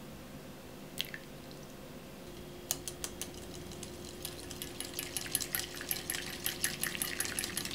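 Fresh cream being stirred into a lemon-and-cheese pasta sauce in a bowl, mixing it toward a thicker sauce: a few single clinks of the utensil at first, then a steady run of quick, wet taps against the bowl from about four seconds in.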